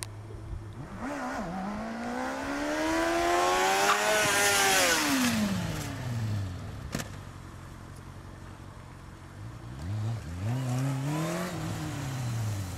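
Motorcycle engine revving up as the bike accelerates, then winding back down, twice: a long, loud run in the first half and a shorter one near the end.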